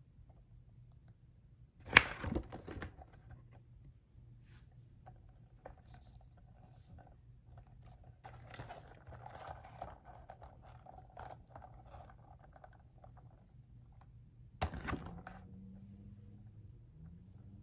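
Paper and card packaging being handled: a sharp tap about two seconds in, soft rustling and crinkling through the middle, and a second sharp tap near the end.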